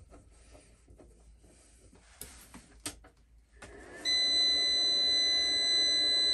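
Solar inverter charger powering on: a few faint clicks, then about three and a half seconds in its cooling fan and hum start, joined half a second later by a long, loud, high-pitched steady beep.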